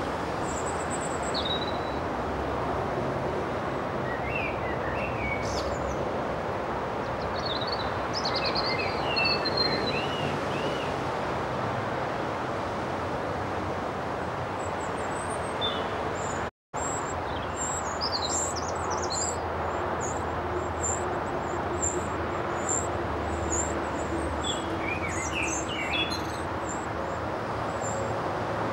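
Short, high-pitched chirps from young wrens at the nest box, coming in scattered groups over a steady background rush of noise. The sound cuts out for an instant about two-thirds of the way through.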